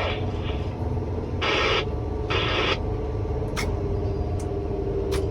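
Machinery running steadily with a low rumble and a steady hum, broken by two short hissing bursts and a few sharp clicks.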